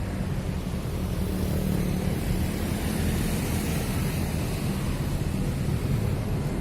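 A vehicle engine running steadily, a low hum under a constant rushing noise.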